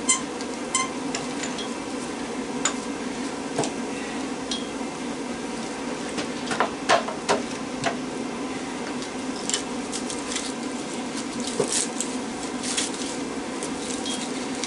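Scattered metallic clinks, taps and knocks of hand tools working against a microwave oven transformer while prying out its copper windings, over a steady low hum.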